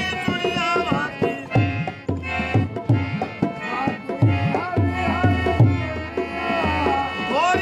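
Qawwali: a man sings long, ornamented lines to a harmonium, over a steady percussion beat of about two strokes a second.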